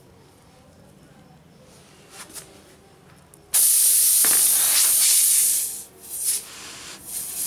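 Air hissing loudly out of a punctured motorcycle tubeless tyre through the open puncture hole. It starts suddenly about halfway in and stops about two seconds later. A few short scrapes follow as a rubber plug string is pushed into the hole.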